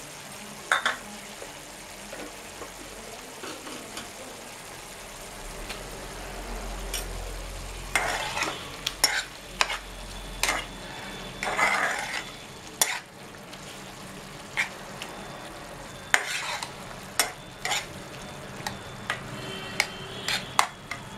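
Prawn curry frying with a steady sizzle in a nonstick frying pan. From about eight seconds in, a spatula scrapes and knocks against the pan in runs of strokes as tomato wedges are stirred through.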